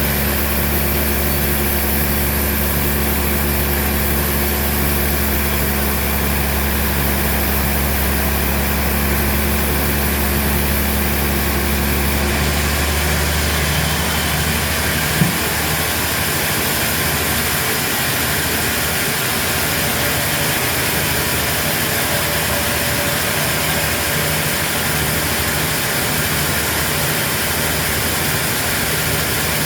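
Heavy sawmill machinery running steadily with a low engine hum. Its sound changes abruptly about twelve seconds in, and a single short knock comes a few seconds later.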